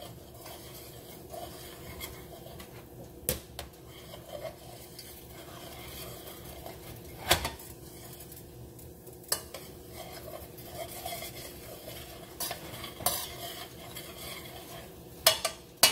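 A metal spoon stirring and scraping in a stainless steel saucepan of sauce, with sharp clinks of the spoon against the pan now and then.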